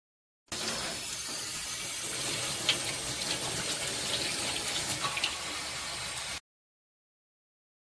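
Steady hiss of running or spraying water, with a couple of faint clicks. It starts about half a second in and cuts off suddenly about six seconds in.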